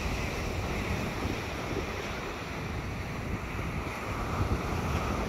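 Wind buffeting the microphone over the steady wash of ocean surf breaking on the beach.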